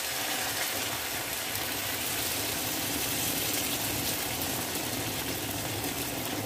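Frying pan of aubergine slices sizzling and bubbling as tomato sauce is poured in from a pot, a steady hiss.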